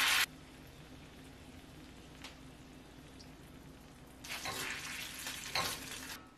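Buffalo hot sauce poured into melted butter in a hot stainless steel frying pan, sizzling loudly and then cutting off just after the start. A low simmer follows, and for the last couple of seconds a silicone spatula stirs the sauce in the pan, with sizzling and scraping.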